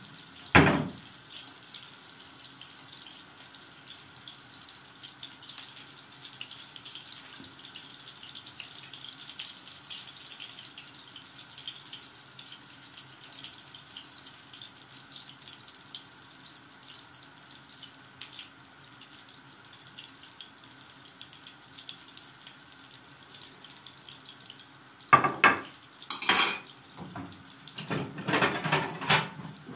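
Köfte meatballs frying in a pan and a lidded pot boiling on a gas stove, giving a steady faint sizzle and bubbling with small crackles. A sharp metal clack comes about half a second in, and near the end there is loud clattering of tongs against the pan and plate.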